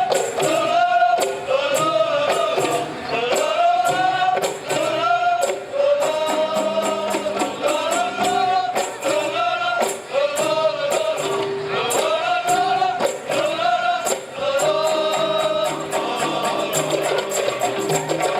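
Male voices singing a qasidah nasyid melody together, the phrases rising and falling about once a second, over a steady beat of rebana frame drums with a tambourine-like jingle.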